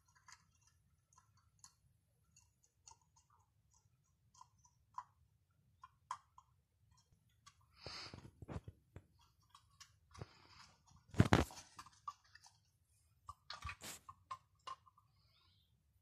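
Cats licking yogurt from a small plastic cup: many small wet clicks of lapping, with a few louder knocks, the loudest about eleven seconds in, as the cup is nosed across the stone floor.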